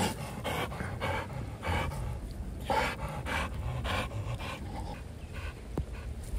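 Bully-type pit bull panting with its mouth open, a steady run of short breaths about two to three a second.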